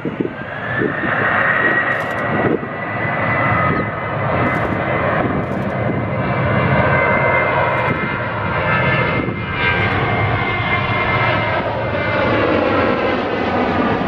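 Boeing 737-800's CFM56-7B turbofan engines spooling up to takeoff thrust for the takeoff roll: a whine rises over the first second and then holds steady over a loud roar. Near the end the engine tones slide down in pitch.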